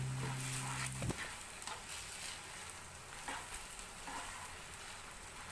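Pancit bihon mixture sizzling in a cooking pan, a steady frying hiss with faint scattered ticks. Background music cuts off about a second in.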